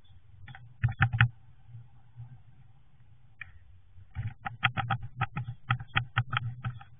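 Sharp taps and knocks on the wooden nest box: a few about a second in, then a quick run of about four to five a second from a little past the middle. A faint steady hum sits underneath.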